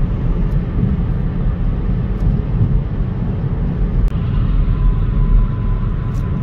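Steady low rumble of a car's tyres and engine at highway speed, heard from inside the cabin. A faint thin whine joins about four seconds in.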